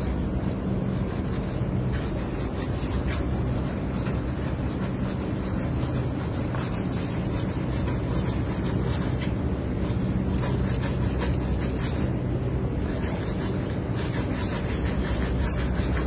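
Thin yellow cord pulled back and forth across a black plastic pipe, rubbing and rasping as it friction-cuts through the pipe. A steady low hum runs underneath.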